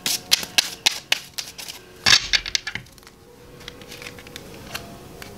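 Tarot cards being shuffled by hand: a quick run of card clicks and snaps, with a louder flurry about two seconds in, then only a few soft clicks.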